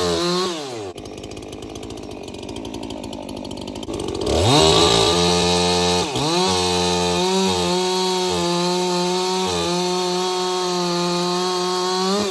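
Chainsaw engine easing off about half a second in and running slower for a few seconds, then revved back up about four seconds in. It holds at high speed with brief dips in pitch until near the end.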